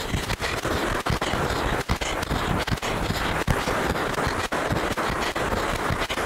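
Wind buffeting the camera's microphone: a loud, rough rushing noise, heaviest at the low end, broken by many brief dropouts.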